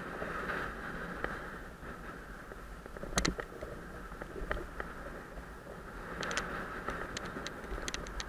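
Riding noise picked up by a bicycle-mounted camera: a steady rush of wind and tyre noise, with scattered sharp clicks and rattles, a loud one about three seconds in and a cluster near the end.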